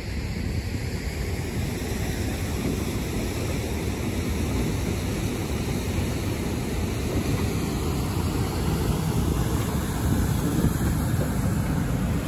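Steady rush of a fast-flowing shallow river running over riffles, with wind buffeting the microphone.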